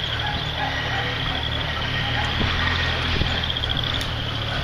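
Insects trilling steadily, a continuous high pulsing buzz, over a steady low rumble.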